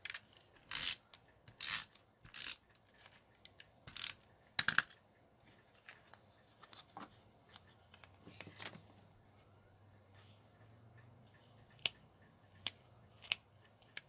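Adhesive tape runner drawn across card stock in about five short rasping strokes in the first five seconds, then light clicks and paper rustling as the piece is handled.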